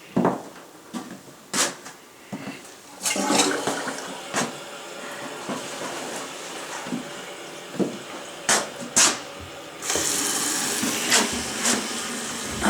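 Toilet being flushed: a clack at the start, then a rush of water from about three seconds in that tapers off, and a louder hiss of water near the end. A few sharp clicks along the way.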